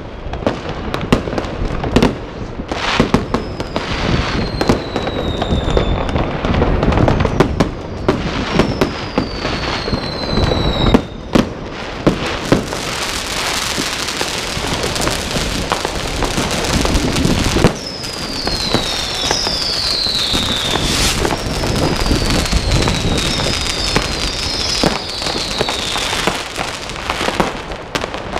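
Many fireworks going off at once: a steady run of sharp bangs from firecrackers and rockets, with several whistling rockets whose whistles fall in pitch. From about twelve seconds in, the bangs thicken into a continuous crackle.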